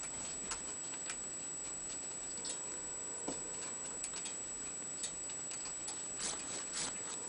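Scattered light ticks and taps, spaced irregularly about once a second, from a ragdoll kitten's paws moving on a quilted cover, over a steady faint high whine.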